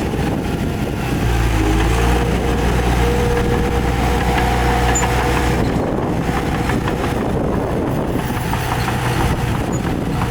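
Heavy diesel earthmoving machine engine running, heavier and louder from about a second in until about six seconds in, with a steady whine above the engine note.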